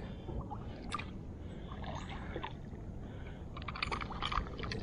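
Water sloshing around a kayak, with a quick run of rapid clicks from a pink Disney Princess spincast reel being cranked near the end as a hooked snook is reeled in.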